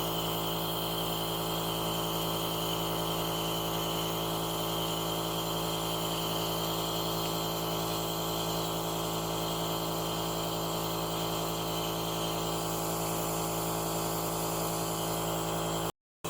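Nebulizer's compressor running: a steady hum with the hiss of air over it, cutting out briefly near the end.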